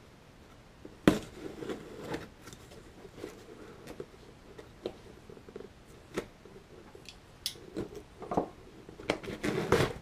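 Knife blade cutting open a cardboard shipping box: scattered scrapes and sharp clicks, busier near the end as the box is handled.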